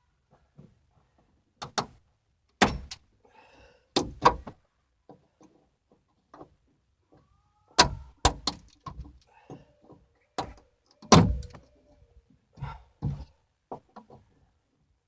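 Irregular sharp snaps, clicks and knocks, about a dozen in all, as the plastic frame of a Scion tC's factory door speaker is broken and cut out of the door with pliers.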